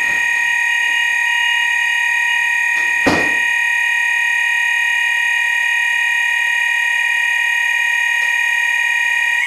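Fire alarm bedroom sounders sounding their continuous tone, a steady unbroken electronic tone, set off manually from a call point. A single knock about three seconds in, and the tone cuts off abruptly at the very end.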